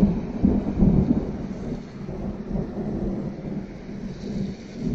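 Rolling thunder rumbling low, with a few swells in the first second, then dying away before building again at the very end.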